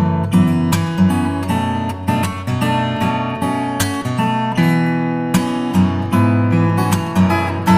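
Music with strummed acoustic guitar in a regular strumming rhythm.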